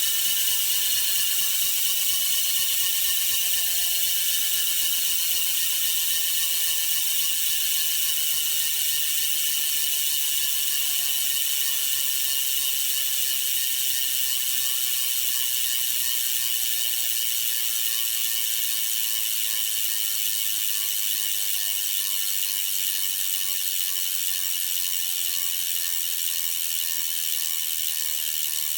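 Hope RS4 rear hub freehub buzzing as the rear wheel coasts in a bike stand: a continuous rapid ratchet of pawl clicks that slowly falls in pitch and eases off as the wheel spins down.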